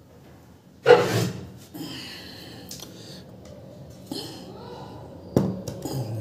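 Metal speaker parts handled on a tabletop: a cast aluminium speaker chassis and a magnet assembly knocking and clinking. There is a loud knock with a brief ring about a second in, lighter clicks and scraping after it, and another sharp knock near the end.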